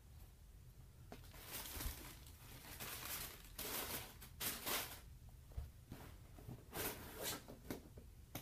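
Paper rustling and sneakers being handled as they are lifted out of a cardboard shoebox, coming in irregular bursts with a few light knocks against the box.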